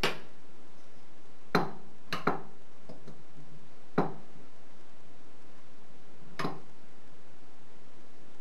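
Steel parts of a lathe spindle hand crank clinking against each other as the crank arm is fitted onto the shaft and handled: about six sharp metallic clicks at irregular spacing, a few with a short ring.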